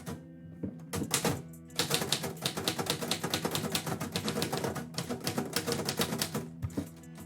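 Typewriter keys striking: a few separate strokes, then a quick, continuous run of typing for several seconds that stops near the end.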